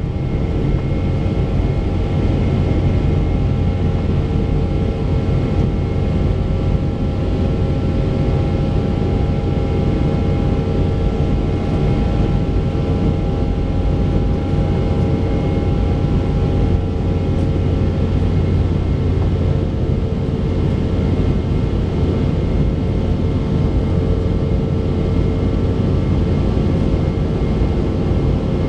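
Cabin noise of a Boeing 717 climbing out after takeoff, heard inside the cabin: a steady, loud rumble from its two rear-mounted Rolls-Royce BR715 turbofans, with a few steady whining tones over it.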